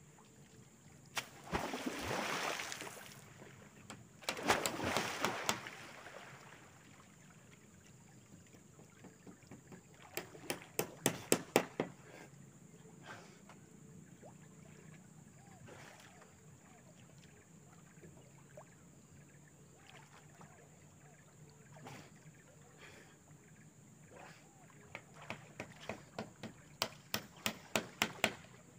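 Two swells of water splashing, then two runs of quick knocks, about four a second, each growing louder.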